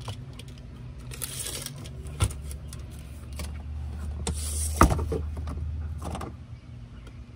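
Retractable tape measure being handled: the blade is pulled out of its case twice in short hissing runs, about a second in and about four seconds in. Two sharp clicks, the louder just before the five-second mark, with a low rumble underneath through the middle.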